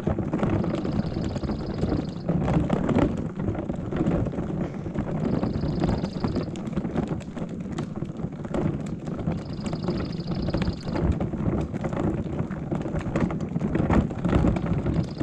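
Wind buffeting the microphone, with scuffs and knocks throughout. A short, high buzzing trill repeats four times, about every four seconds.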